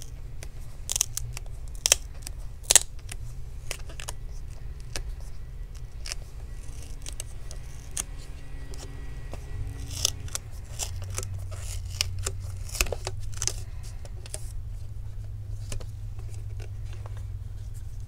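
Irregular small clicks and taps of a flat metal pry tool and gloved fingers handling a laptop's LCD panel, display cable and connector tape, with a steady low hum underneath.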